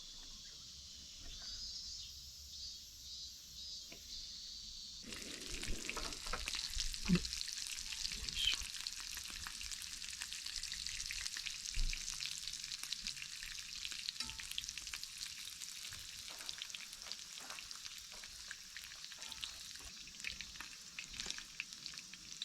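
Thin-sliced steak sizzling in a frying pan. The sizzle gets louder suddenly about five seconds in, with many small crackling pops.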